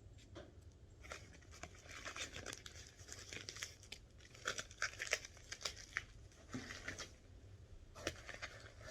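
Faint packing paper crinkling and tearing in irregular rustles as a wrapped item is unwrapped by hand.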